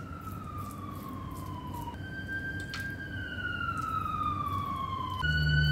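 Siren wailing outside, a tone that slides slowly down in pitch and jumps back up every few seconds, growing louder, with a low hum coming in near the end. Over it come a few light clicks of a metal fork against the non-stick pan.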